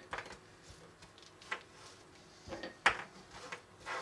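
A few light, sharp taps as small round biscuits are set down one at a time on a hard tabletop; the loudest comes about three seconds in.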